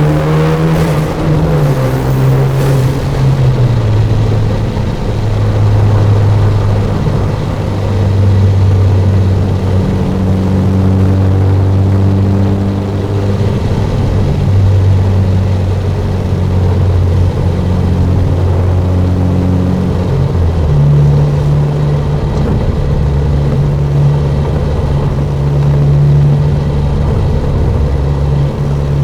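Turbocharged Genesis Coupe's engine and aftermarket free-flow exhaust while driving. Revs fall over the first few seconds under a brief airy rush, then settle into a steady low drone. About three-quarters of the way through, the pitch steps up suddenly and holds there.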